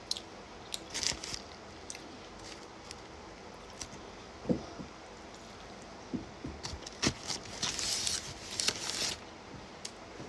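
A person eating chicken wings close to the microphone: scattered wet chewing clicks and mouth smacks, with a denser run of crunchy bites about three quarters of the way through.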